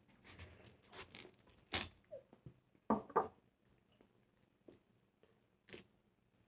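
Crisp, wet crunching of firm, juicy watermelon flesh being bitten and chewed: a quick cluster of bites and chews in the first half, then two single crunches later.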